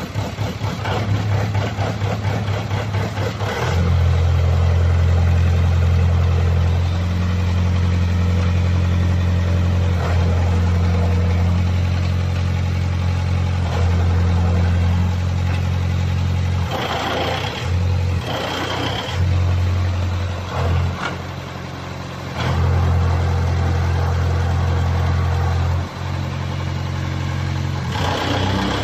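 XY-3 hydraulic drilling rig running with a steady low engine hum as its levers are worked. The hum steps up in loudness a few seconds in, falls back and wavers for a few seconds past the middle, then rises again. Several short bursts of hiss and clatter come over it in the second half.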